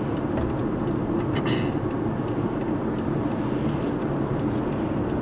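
Steady road and engine noise of a car driving, heard from inside the cabin: a constant low rumble.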